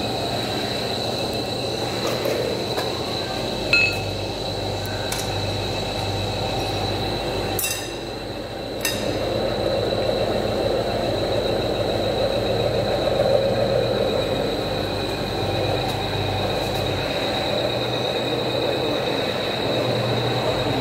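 Pharmaceutical lump crusher running: a steady motor-driven machine noise with a constant high whine over a low hum. There are a few sharp clicks, and the sound drops briefly about eight seconds in.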